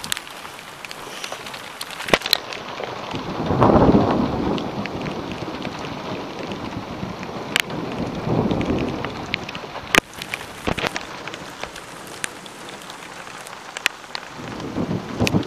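Thunderstorm: steady rain hissing, with deep rumbles of thunder swelling up about four seconds in, again around eight to nine seconds in, and near the end, and scattered sharp clicks.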